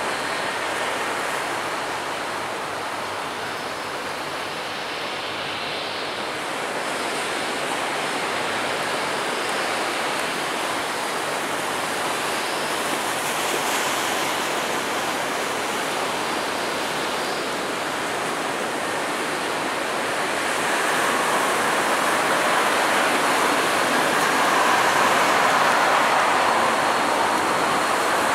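Boeing 777-200 twin-jet airliner's engines heard as a steady rushing roar as it rolls out along the runway after touchdown, growing louder about twenty seconds in.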